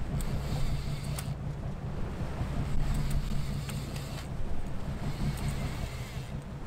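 Boat engine running steadily with the boat under way, with wind buffeting the microphone.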